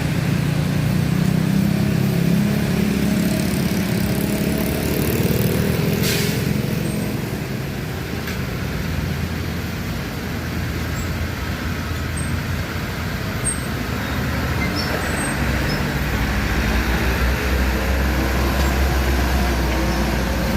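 Road traffic with heavy vehicle engines running. A deep engine rumble is strongest over the first few seconds and fades, then a steady low drone builds near the end.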